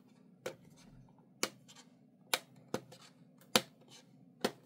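Fingers handling a taped-shut metal watercolour tin: about six sharp, separate clicks and taps, spaced roughly a second apart.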